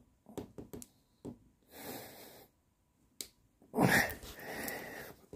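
A man's heavy, strained breathing as he forces a tyre repair string into the puncture: a breathy exhale about two seconds in and a louder, longer straining exhale near the end, with a few small clicks from the tool and tyre before them.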